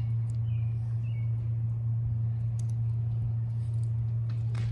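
A steady low hum, with faint ticks and scrapes as a utility knife cuts tape on a PVC feed tube. A sharper click comes near the end.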